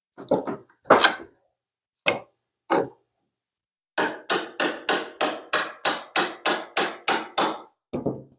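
Hammer striking a wide putty knife to drive its blade under a glued-on carved wooden ornament and pry it off the cornice. A few separate knocks, then a quick even run of about a dozen taps, roughly three a second, and one last knock near the end.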